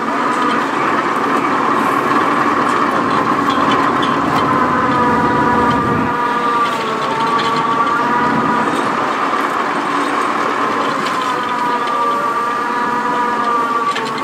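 Diesel truck engine running the boom truck's winch as hay bales are hoisted. Its steady whine rises and falls gently in pitch with each lift.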